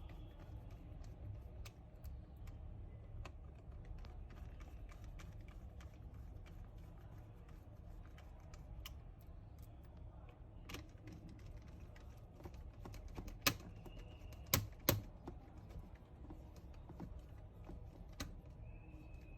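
Faint small clicks and taps of a magnetic screwdriver tightening the laptop battery's three screws, with three louder clicks about 14 seconds in.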